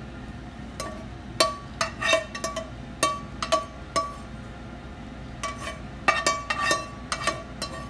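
Plastic spatula knocking and scraping against a non-stick frying pan and a ceramic plate as fried rice is pushed out of the pan: a run of irregular clinks, each with a brief ringing tone, pausing for a moment about halfway through.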